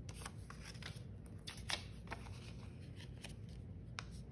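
A paper cut-out circle being folded in half by hand: soft rustling with a few short, crisp crinkles of the paper.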